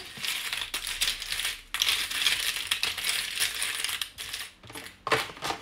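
Coffee capsules clattering and clinking as they are tipped and shuffled into a transparent capsule container. A dense run of small clicks, with a brief pause under two seconds in and a few louder knocks near the end.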